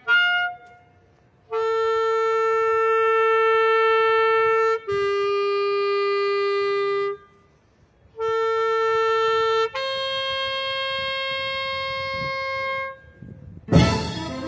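Solo clarinet holding long, sustained notes: one note, then a step lower, a short pause, the first note again, then a slightly higher held note. Near the end the full orchestra comes in loudly.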